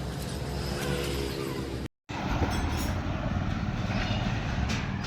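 A motor vehicle's engine running steadily, with a brief dropout about two seconds in.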